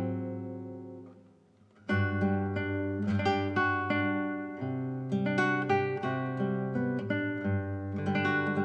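Background music of a plucked acoustic guitar. A chord rings and fades away over the first two seconds, then the picking starts again and carries on.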